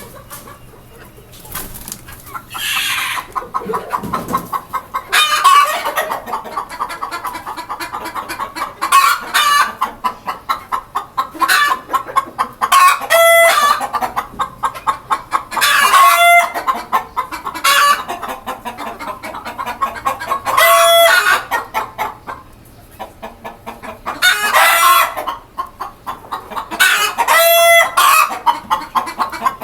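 A flock of desi chickens clucking almost without pause, with a loud, drawn-out call every few seconds.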